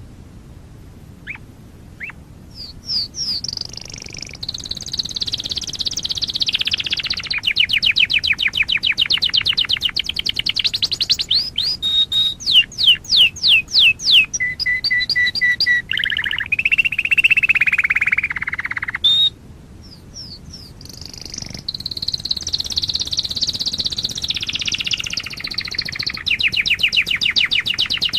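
Domestic canary singing: long runs of rapid trilled notes, a few slower and louder sweeping notes about halfway through, then a held tone and a falling warble. After a brief pause the fast trills resume.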